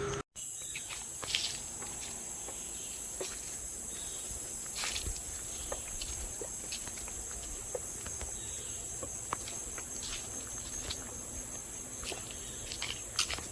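Steady high-pitched buzzing of jungle insects, with scattered footsteps crunching on a soil-and-leaf path.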